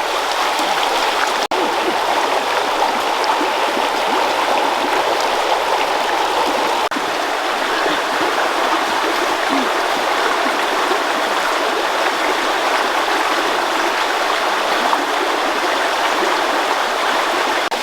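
Steady rush of a forest stream's running water.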